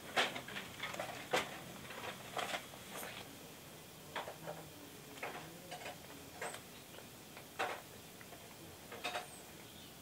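Wood fire crackling inside a small iron stove: irregular sharp pops and ticks, roughly one a second, some louder than others, over faint room hiss.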